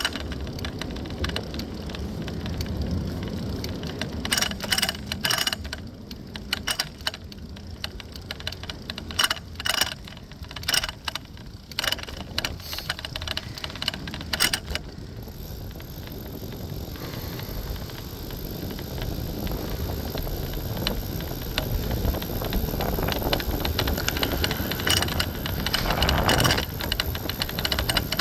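City bike being ridden: a steady low rumble, with bursts of sharp rattling clicks between about 4 and 15 seconds in. A faint steady high whine comes in about halfway, and a swelling rush peaks near the end.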